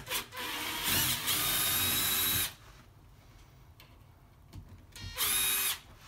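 Cordless drill-driver backing screws out of a uPVC door hinge bracket. There is one run of about two seconds that picks up speed in its first second, then a short second burst near the end.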